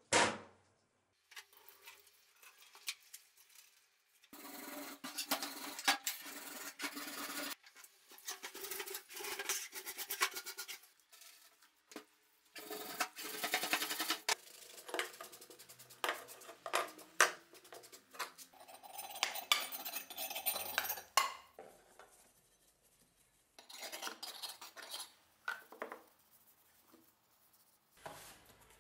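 Rusty hatchet head being scrubbed in a stainless steel sink, with loosened rust being cleaned off after electrolysis. It comes as rubbing and scraping strokes in bursts of a few seconds, with sharp clacks of the metal against the sink.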